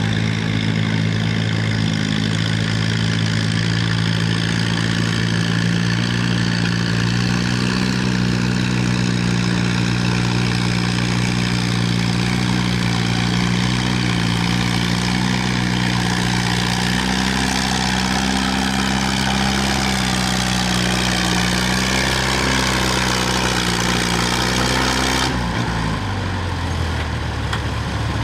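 A vintage tractor engine runs hard at steady speed as it drags a weight-transfer pulling sled, its pitch wavering slightly under the load. About three seconds before the end the engine is throttled back and its pitch drops sharply as the pull finishes.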